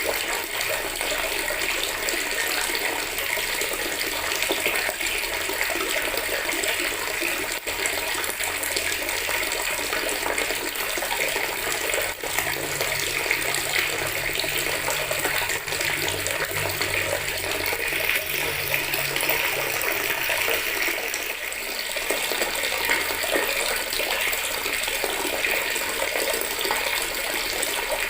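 Water running steadily from a tap into a bucket, a continuous splashing rush.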